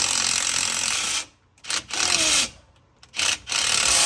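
Impact wrench running on the driveshaft bolts of a Jeep JL to break them loose. It runs continuously for about a second, then in four or five short bursts with quiet gaps between them.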